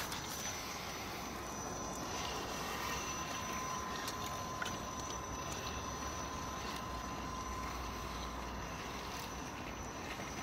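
Traxxas TRX-4 RC crawler driving slowly over gravel while towing a trailer: a steady crunching hiss of tyres on stones, with a faint, thin whine from its electric motor and gears through the first part.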